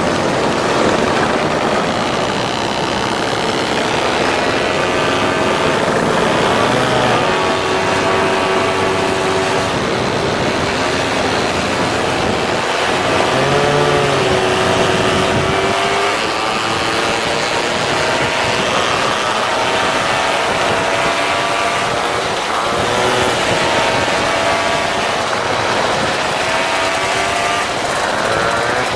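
Several moped engines running and revving on the move, their pitches rising and falling and overlapping, over a steady noisy rush.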